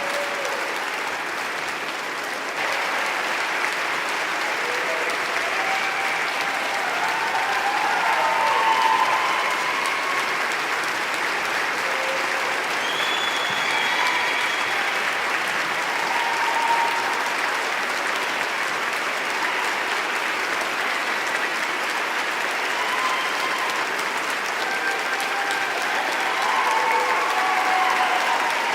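Crowd applauding steadily, a dense even clapping with a few brief voices calling out over it.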